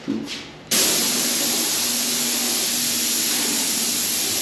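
Graco 695 airless paint sprayer's gun spraying paint: a steady hiss that starts abruptly less than a second in, as the trigger is pulled, and holds evenly.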